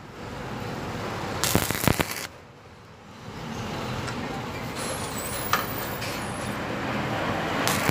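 Stick-welding arc crackling and hissing as a coated electrode welds thin square steel tube in short runs: the arc stops a little over two seconds in and strikes up again about a second later.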